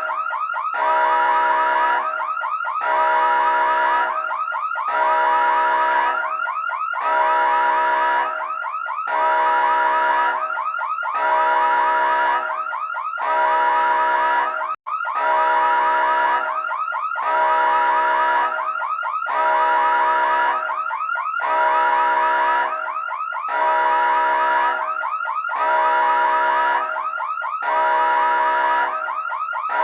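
Electronic emergency siren repeating a cycle about every two seconds: a fast warble that settles into a steady tone. It cuts out for an instant about halfway through.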